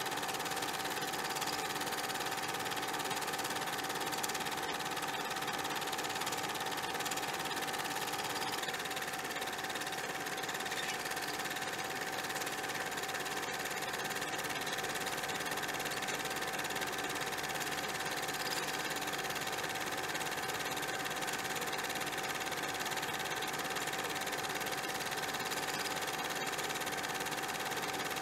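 Steady mechanical whirring with a constant mid-pitched hum over an even hiss, unchanging in level.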